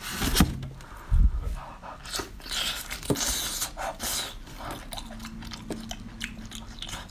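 A person biting into and chewing crunchy food, with a string of sharp, separate crunches and a loud low thump about a second in.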